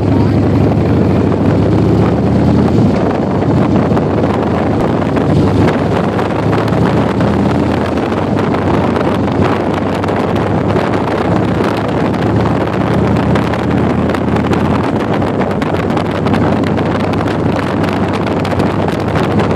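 Wind rushing over a phone's microphone on a moving motorcycle, with the motorcycle's engine running underneath as a low steady tone, most noticeable in the first few seconds and again about two-thirds of the way through.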